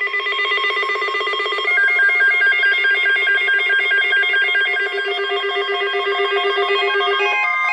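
Weather radio receiver sounding its electronic alert alarm: a loud, rapidly pulsing trill that switches to a warble between two pitches about two seconds in. The alarm signals an incoming weather alert, here a severe thunderstorm watch.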